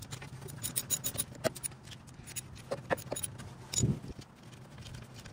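Ratchet wrench clicking in quick runs as a 14 mm brake caliper bolt is worked loose, with a few more sharp metal clicks later and a dull knock near the end as the caliper is handled.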